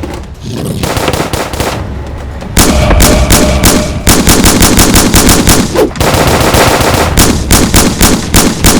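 Rapid automatic-gunfire sound effects, fired in quick volleys of many shots a second, which grow much louder about two and a half seconds in.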